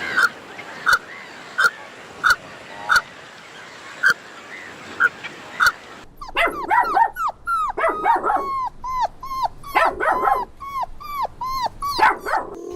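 Dog yapping in short single barks, about one every two-thirds of a second, then, after an abrupt change about six seconds in, a rapid run of overlapping yelps and whimpers.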